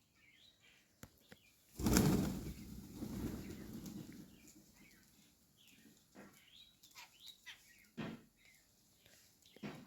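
Birds chirping in short calls, with a sudden loud flurry about two seconds in that dies away over a couple of seconds, like wings flapping.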